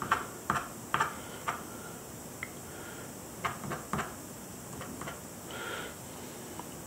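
Ballpoint pen scratching quick short strokes on drawing paper laid over an inked plexiglass plate, as whiskers are drawn in. Several brief scratches come in the first second and a half, a few more around four seconds in, and a slightly longer stroke near six seconds.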